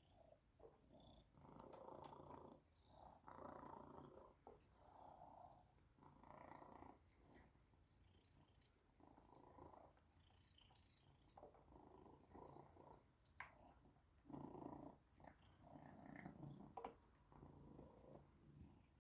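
Domestic cat purring quietly, the purr swelling and fading with each breath about every second or two, with a few faint clicks.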